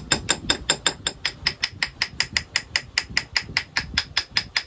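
Rapid, evenly spaced light hammer taps on the side of a thick-walled steel canister held in a vise, about five a second, each with a high metallic ring. The tapping vibrates the 1084 powdered steel down around the 52100 ball bearings packed inside, filling the gaps.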